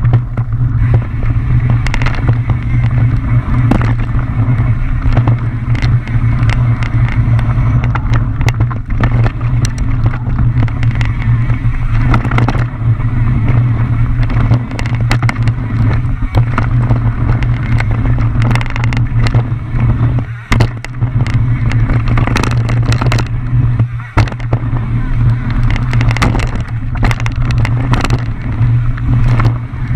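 Mountain bike descending a rough trail: steady wind rumble on the camera microphone with frequent clattering knocks and rattles from the bike, and a few brief lulls.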